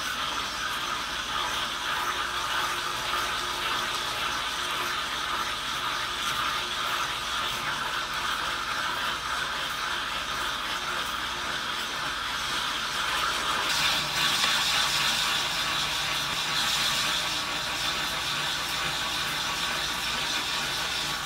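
Cordless drill turning a diamond-coated hole saw, grinding steadily through half-inch aquarium glass, the cut kept wet. The grinding grows louder and brighter about two-thirds of the way through.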